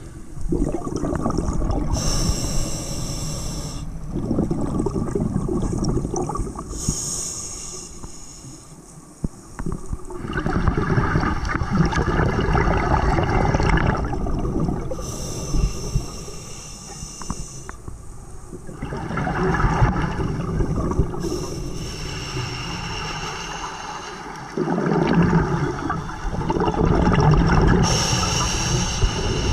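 A scuba diver breathing underwater through a regulator. Slow breaths in and out come every several seconds, each followed by a rush of exhaled bubbles.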